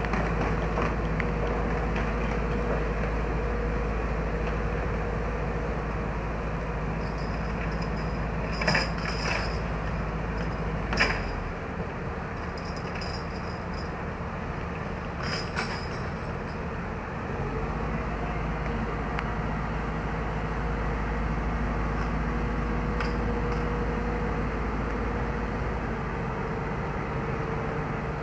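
Heavy diesel engine running steadily at idle, its deep hum easing off for several seconds around the middle. A few short metallic clanks sound, the loudest about eleven seconds in.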